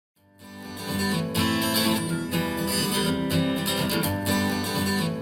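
A song starts after a brief silence: strummed acoustic guitar with bass, rising in over the first second and then steady.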